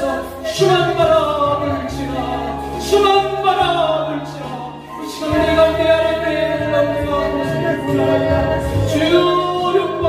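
A man sings a slow praise song into a microphone, holding long notes over sustained electronic keyboard chords that change every second or two.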